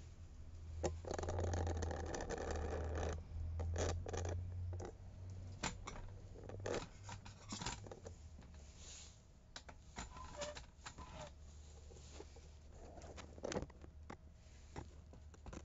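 Handling noises: about a second in, two seconds of rustling, then scattered clicks and light taps as a green bell pepper is set on and lifted off a stainless-steel kitchen scale and the scale is handled. A low rumble runs underneath.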